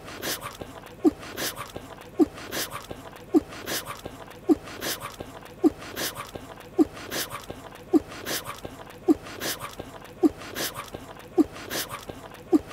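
Cartoon chewing sound effect on a loop: wet, smacking chews with a short squeaky note, repeating identically roughly once a second.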